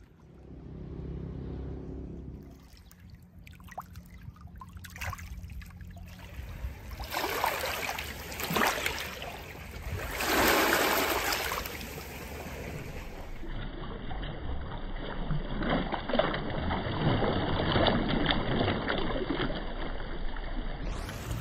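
Shallow lake water lapping and washing over pebbles at the shoreline, in surges that swell and fall back. A low hum sits underneath in the first couple of seconds.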